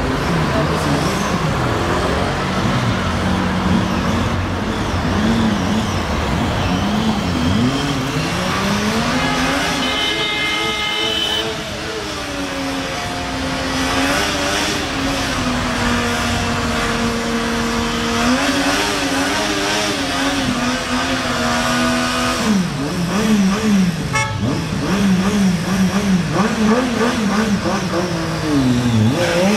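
Triumph Daytona 675's three-cylinder engine revving hard during a burnout, the rear tyre spinning on the pavement. The revs rise and fall with the throttle, are held steady and high for several seconds in the middle, then blip up and down again near the end.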